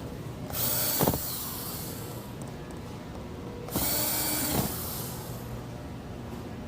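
Power driver running in two short bursts, each under a second, driving screws into the deck box's plastic base.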